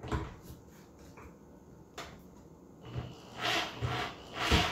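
Corded electric drill driving a wood screw into a caster bracket: a few light clicks, then from about three seconds in short loud bursts of scraping and rubbing as the bit works the screw, with a sharp knock near the end. The drill is at an awkward angle and the screw is not driving in cleanly.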